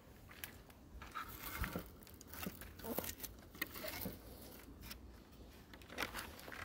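Scattered light knocks, scrapes and rustles as a hand handles an old, weathered wooden gate.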